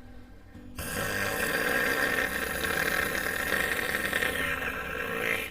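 A person's snore-like throat rattle, the guttural sound used as a step toward a tongue trill, with breath hissing out past the lower sides of the tongue. It is a failed trill: the tongue tip is not vibrating. It starts about a second in, holds steady for about four seconds, and stops abruptly.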